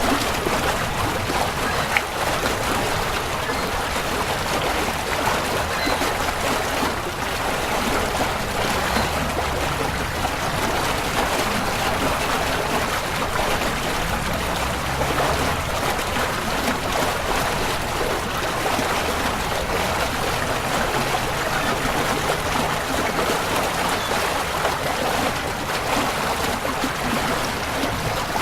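Designed sci-fi spaceship engine-room sound effect: a steady rushing hiss over slow, low tones that shift in pitch every few seconds.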